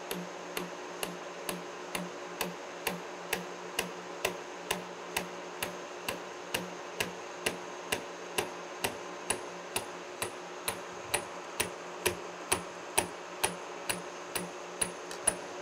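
Horizontal milling machine running a carbide-insert slotting cutter through a metal shaft on the final slotting pass. A sharp tick comes about twice a second as the cutter's inserts strike the work, over the machine's steady drone.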